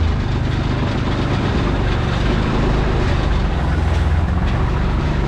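An engine running steadily, with a low pulsing note that swells briefly about four seconds in.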